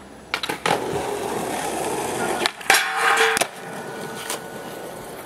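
Skateboard wheels rolling on concrete, then the board's trucks grinding a metal flat bar in a feeble grind for under a second, with a ringing squeal. A sharp clack marks the board coming off and landing, and the wheels roll on more quietly.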